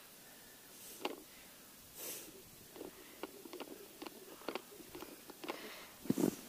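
Faint handling noise of an ice-fishing tip-up and its line at a hole in the ice: soft crunches about a second and two seconds in, then a run of small clicks, and a louder crunch near the end.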